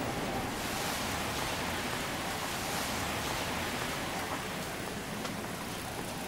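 Steady rain falling, an even hiss with no single drops or other events standing out.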